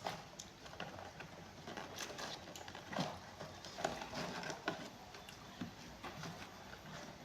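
Eating chicken close to the microphone: irregular wet chewing, mouth clicks and lip smacks.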